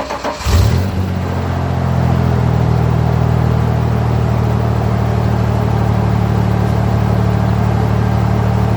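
1994 Ford Ranger engine catching about half a second in with a brief flare, then settling into a steady idle. This is the first run after an oil change, circulating the fresh oil.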